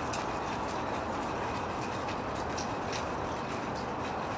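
Steady rain falling, with scattered ticks of drops striking surfaces.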